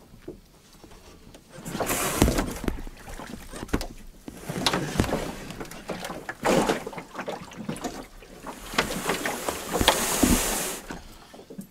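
Paddle strokes pulling a small boat through water: a splashing surge every couple of seconds, with a few sharp knocks in between.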